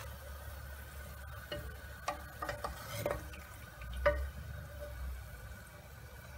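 Eggplant pieces frying in hot oil with a faint sizzle, while a metal slotted spoon scoops them out, clinking sharply against the pot several times in the middle of the clip, loudest once about four seconds in.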